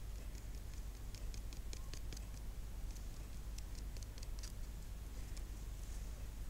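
Paper crackling as a small strip is folded and pressed between the fingers: a quick, irregular run of short dry clicks that stops shortly before the end, over a steady low hum.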